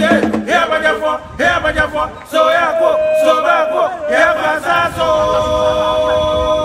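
Voices singing without instruments, the melody moving between notes and settling into long held notes about two and a half seconds in and again from about five seconds to the end.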